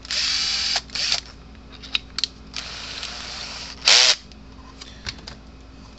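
Power drill with a step bit run in short bursts, opening up the fuse-mount hole in a plastic fence-charger case, with clicks of handling between runs. The loudest burst comes about four seconds in, its pitch rising then falling as the motor speeds up and slows.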